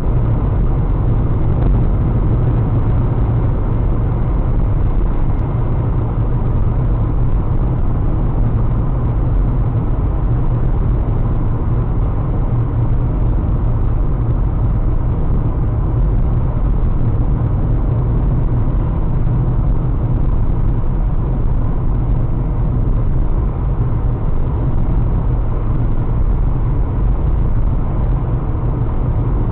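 Steady low rumble of a car driving, road and engine noise picked up by a dashcam microphone inside the cabin, with no distinct crack or change.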